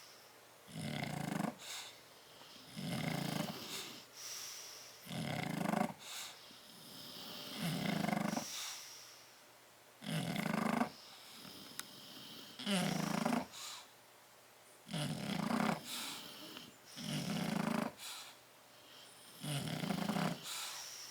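Sleeping bulldogs snoring, one rough, low snore about every two seconds.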